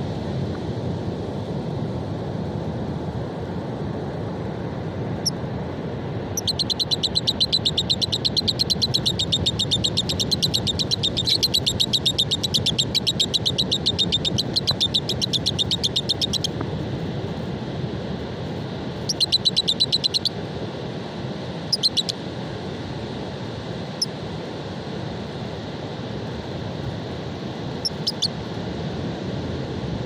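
Caged lovebirds chattering: a rapid, even run of high notes lasting about ten seconds, then a shorter burst a few seconds later and a few single chirps. Steady surf and wind wash underneath throughout.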